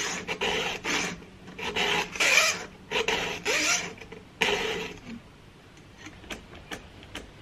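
Short rasping scrapes, one after another, about six of them over the first five seconds, then only faint scattered clicks.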